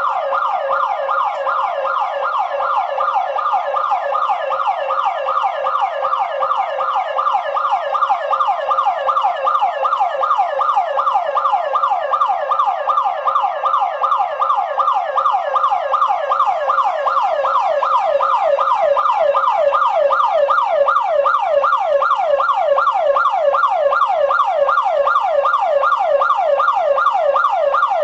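Electronic security alarm siren of a daycare building, sounding continuously in fast repeating sweeps, several a second. It grows slightly louder as it goes on.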